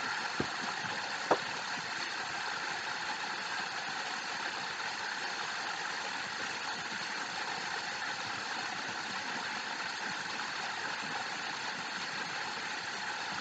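Steady background hiss, like a fan or room noise, with two short clicks in the first second and a half.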